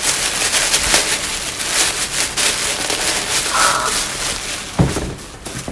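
White tissue paper crinkling and rustling as it is pulled open by hand, a dense run of crackles, with a single low thump near the end.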